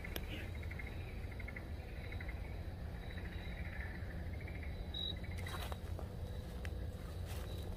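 Night chorus of small calling animals, rapid pulsed trills that thin out about five seconds in. Near the end come a few crunching footsteps on leaf litter.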